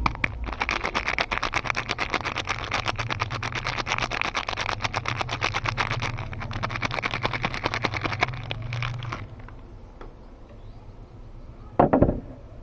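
Soap wrapping being unwrapped: a fast, dense crackling over a low hum that stops about nine seconds in, followed by a short, louder rustle near the end.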